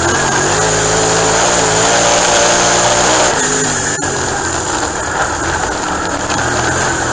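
Dirt-track race car engine heard from inside the cockpit at speed, its pitch climbing gently under throttle for about three seconds, then turning rougher as the car lifts into a corner. A single sharp click comes about four seconds in.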